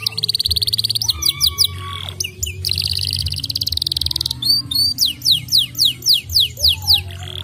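Domestic canary singing: a fast, buzzing trill at the start and again about three seconds in, then a run of quick downward-sweeping whistled notes repeated several times a second.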